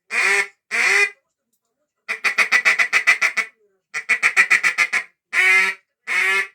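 Goose call made by Dima Melnikov, blown in practice. Two single honks, then two fast rolls of short clucks at about seven a second, then two more honks.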